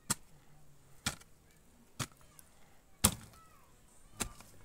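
Hand hoe striking into garden soil, five chopping blows about a second apart.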